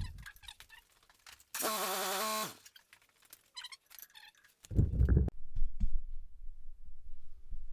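A handheld cordless power tool, such as a drill or driver, runs for about a second with a whine that wavers in pitch and winds down. Metal clicks and rattles of tool handling follow, then a loud low thump and low rumbling handling noise in the second half.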